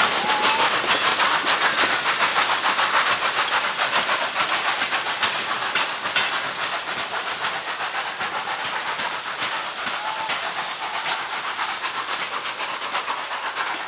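Steam locomotive 414.096 pulling a train of coaches away from a station: rapid exhaust beats and steam hiss mixed with the rattle of the coaches on the rails, fading gradually as the train moves off.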